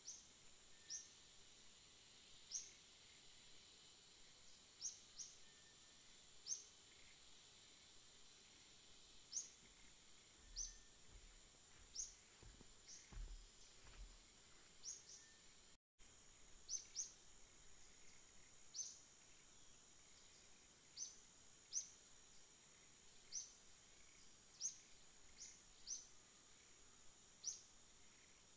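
Faint outdoor ambience: a steady, high-pitched insect drone with short, high chirps every second or two. The sound drops out for an instant about halfway through.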